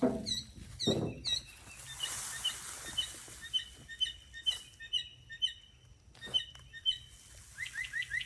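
Songbirds chirping, several short calls repeated over and over, with a quick run of rising chirps near the end. Two brief lower-pitched sounds come in the first second.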